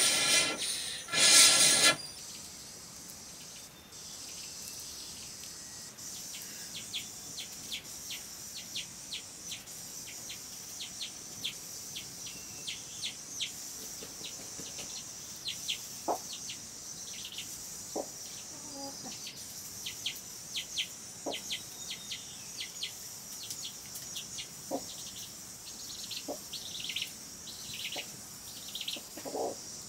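About two seconds of loud music, then songbirds chirping in many short, quick calls over a steady high insect hum. A few faint clicks come through now and then.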